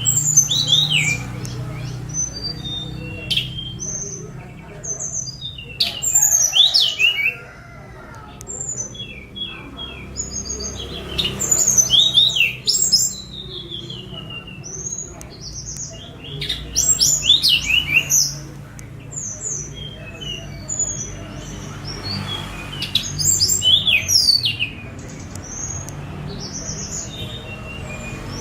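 Tledekan gunung songbird singing in repeated bouts of quick, high whistled notes that slide up and down, with short pauses between the bouts, over a steady low hum.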